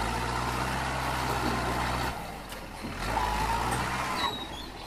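Tractor engine running under load as its wheels spin in deep mud. The engine note drops away briefly about two seconds in, then picks up again with a faint whine.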